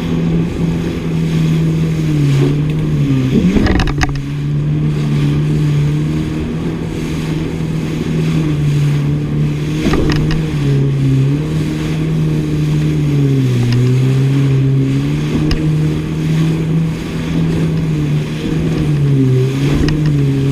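Yamaha WaveRunner jet ski engine running under way at steady speed, its note dipping in pitch three times as the throttle eases. Two sharp knocks come through, about 4 and 10 seconds in.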